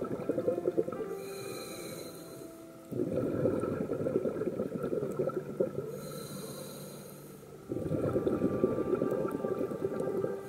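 A scuba diver breathing through a regulator underwater, two breath cycles: a hiss on each inhale about a second in and again about six seconds in, then a sudden rush of exhaled bubbles about three seconds in and again near eight seconds.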